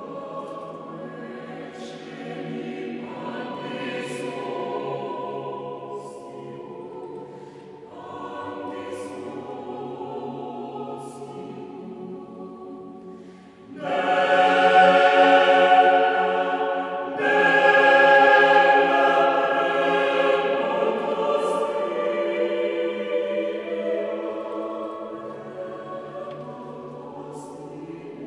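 Mixed a cappella choir, men's and women's voices together, singing sacred music in held chords. About halfway through the singing suddenly swells to its loudest, breaks off for a moment, comes back loud and then gradually softens toward the end.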